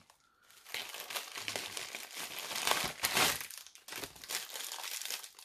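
Packaging crinkling and rustling as an item is unwrapped by hand, in irregular bursts that are loudest about three seconds in.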